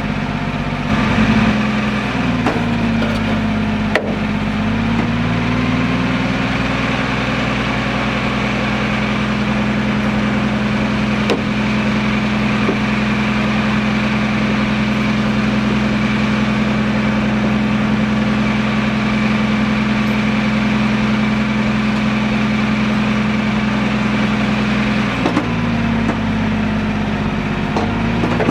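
An engine running loud and steady, its speed dropping and picking up again in the first few seconds and once more near the end.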